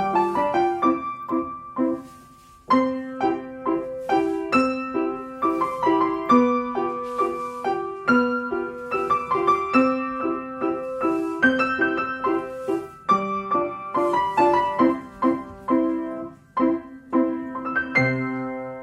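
Piano playing ballet-class accompaniment for a barre exercise, in an even, steady pulse of chords, with a brief break about two seconds in and a held closing chord near the end.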